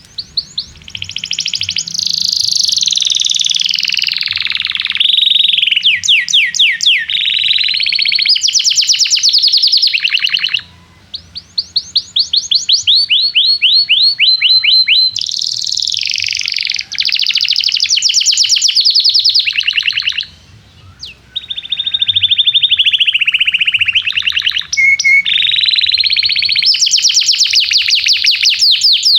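Domestic canary singing long phrases of rapid trills and fast repeated chirps, with brief pauses between phrases.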